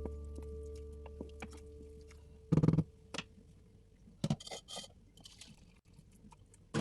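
Kitchen clatter: a few knocks and clinks of dishes and utensils, with a louder clatter about two and a half seconds in and a cluster of clinks a little after four seconds. A music note is dying away at the start.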